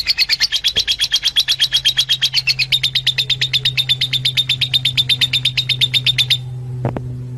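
Fischer's lovebird calls: a fast, even run of shrill chirps, about ten a second, that stops about six seconds in. A steady low hum lies underneath.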